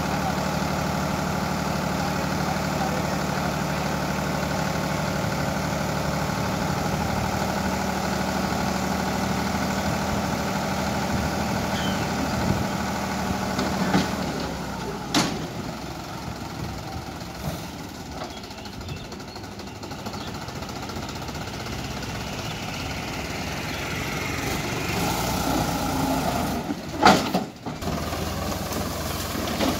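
Tractor diesel engine running steadily while the hydraulic tipping trailer dumps its sand load. About halfway through the steady engine note gives way to a quieter, rougher running with a sharp clank, and a louder double clank comes near the end as the tractor moves off with the emptied trailer.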